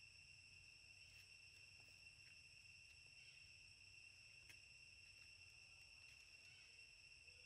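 Faint, steady, high-pitched drone of insects in the forest, unbroken throughout, with a few faint clicks.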